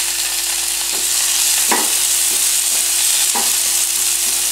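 Chopped tomatoes frying and sizzling in hot oil with onion, ginger and garlic in a small non-stick pan, for a tarka. A wooden spatula stirs and scrapes the pan in a few separate strokes over the steady sizzle.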